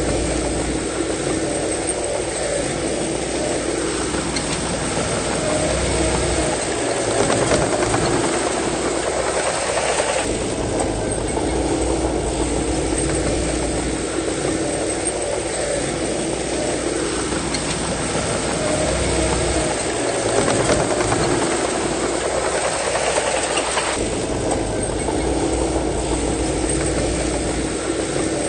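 Bulldozer's diesel engine working steadily. Twice its note climbs over several seconds, as it does under load on a push, then drops back suddenly.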